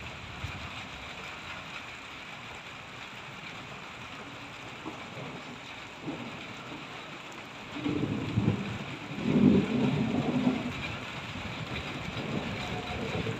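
Steady rain hiss, with a roll of thunder that swells about eight seconds in and dies away about three seconds later.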